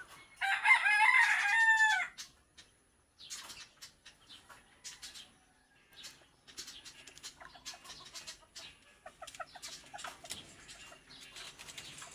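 A rooster crows once, loud, for about a second and a half near the start. After that come quieter clucks and scattered clicks.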